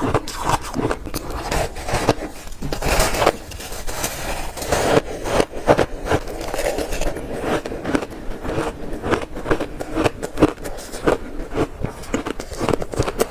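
Close-up bites into shaved ice: a dense run of crisp crunches as teeth break through the ice, one after another.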